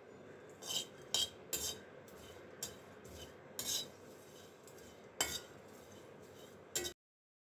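Wooden spatula stirring chopped onions in a clay pot, a string of irregular scrapes and knocks against the pot's side and bottom. The sound cuts off suddenly near the end.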